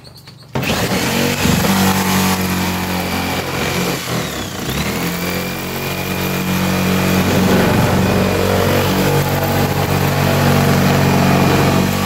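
Electric jigsaw cutting a circular hole through the plastic, foam-insulated lid of an ice chest. It starts suddenly about half a second in, with a steady motor pitch that dips briefly around four seconds in.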